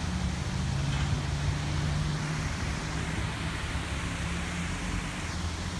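A steady low engine drone under an even rushing noise, as from a motor running continuously.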